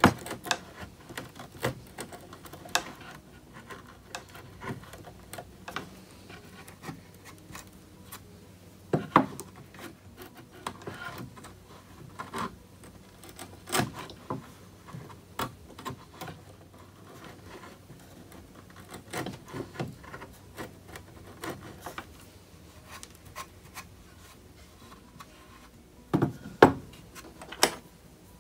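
Hand router plane cutting a shallow butt-hinge mortise in wood: irregular small scrapes, slices and clicks as the blade is worked across the grain. A few louder knocks come near the end.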